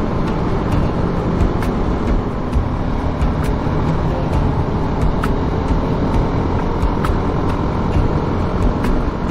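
Steady wind rush over the microphone mixed with the drone of a BMW G 310 GS single-cylinder motorcycle engine cruising at road speed.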